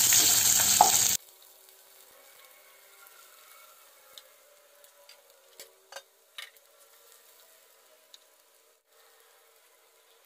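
Sliced onion sizzling loudly in hot ghee in a nonstick pan as a wooden spatula stirs it. The sizzle cuts off abruptly about a second in, leaving near silence with a few faint clicks.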